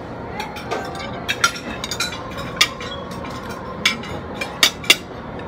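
Metal spoon and fork clinking and scraping against a plate while eating, about eight sharp clinks spread through the moment over steady background noise.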